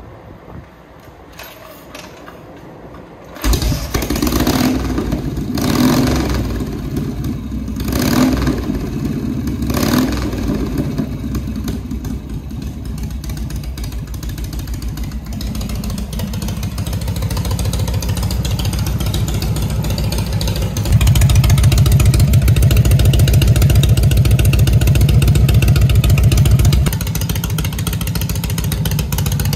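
Harley-Davidson 74-cubic-inch Shovelhead V-twin motorcycle engine starting about three and a half seconds in, blipped four times, then running steadily. It runs louder for about six seconds near the end before settling back.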